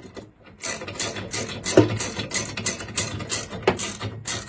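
Ratchet wrench clicking in quick, regular strokes, about four clicks a second, as it retightens the pivot bolt on an elliptical's leg arm after a new bushing is fitted.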